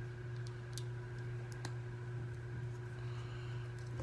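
A few faint clicks from a plastic wrestling action figure's arm joints being flexed by hand, over a steady low hum.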